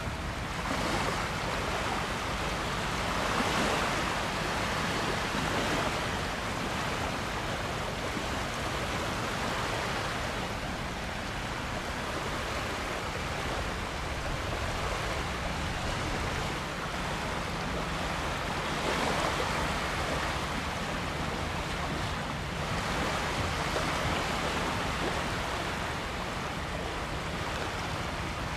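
Small waves washing onto a stony river foreshore, swelling and fading every few seconds, with a faint steady low hum underneath.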